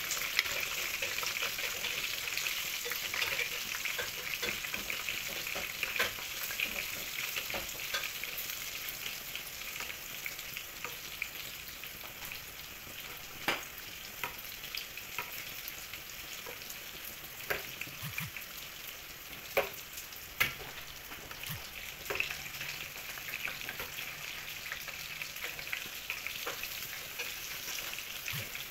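Beef chicharon pieces deep-frying in a pan of oil: a steady sizzle with scattered sharp pops and crackles. A spatula or ladle stirs and bastes the pieces now and then.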